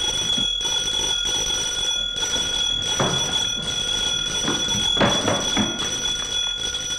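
Steady high-pitched whine from an old film soundtrack, several fixed tones held unbroken throughout, with a few brief, faint voice sounds about three and five seconds in.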